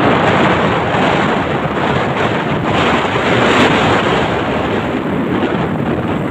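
Wind rushing over the microphone of a moving vehicle: a loud, steady noise with no clear engine note.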